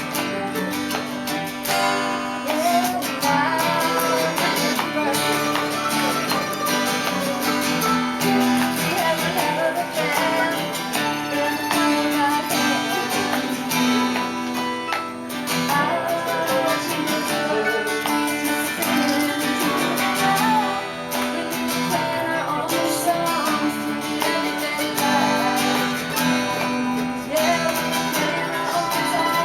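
Acoustic guitar strummed through a country-style song, with a melody line over the chords.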